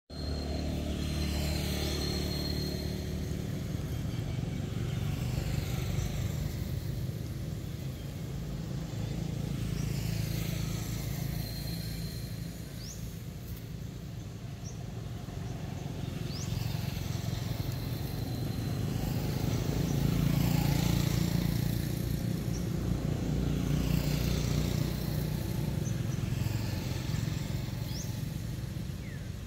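Vehicle engines passing at a steady distance, a low hum that swells and fades several times, with a few short bird chirps above it.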